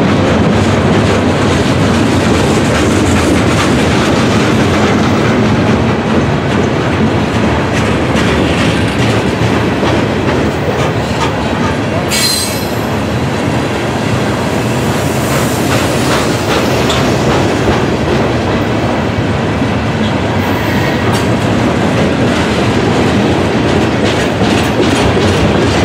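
Loaded freight train of covered steel coil cars rolling past: a loud, steady rumble of wheels on rail with clickety-clack over the joints, and a brief high wheel squeal about twelve seconds in.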